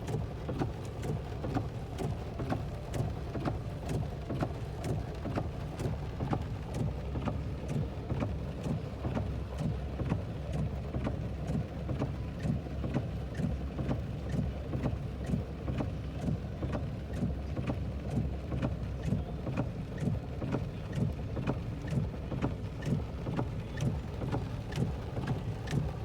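Steady rain, with drops ticking irregularly, several a second, on a nearby surface over a constant low rumble.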